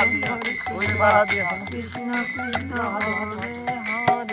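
Hindu devotional kirtan music: voices singing a melody over rapid, steady strikes of small hand cymbals that keep ringing, with a low drum beat underneath.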